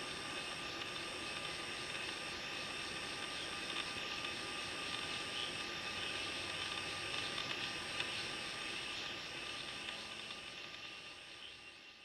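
Evening forest insect chorus: a dense, steady drone of several held high tones, with a very high trill running in long stretches broken by short gaps about every one and a half seconds. It fades out near the end.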